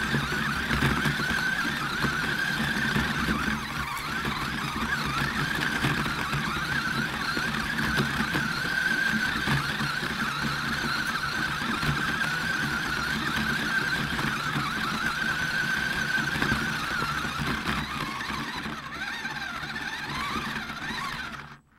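RC rock crawler's brushed electric motor and gear train whining steadily as it drives over grass, heard close up through the onboard FPV camera. Near the end the whine rises in pitch, then the sound cuts off suddenly.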